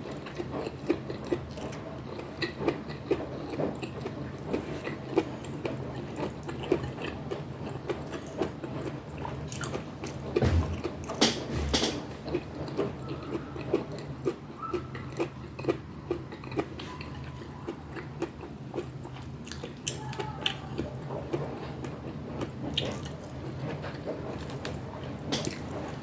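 Close-miked chewing and mouth sounds of a person eating pinakbet, a stew of vegetables and pork: frequent small smacks and clicks over a steady low hum, with a few sharper, louder clicks about ten to twelve seconds in.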